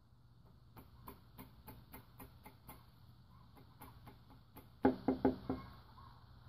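Piston being tapped down through a ring compressor into its cylinder bore, a run of light, even taps at about four a second. About three-quarters of the way in come around five harder, ringing knocks.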